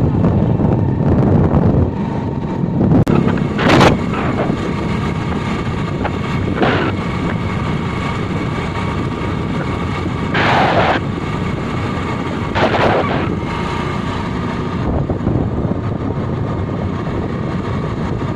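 Motorcycle running at road speed with heavy wind noise on the microphone, broken by four short louder rushes of noise.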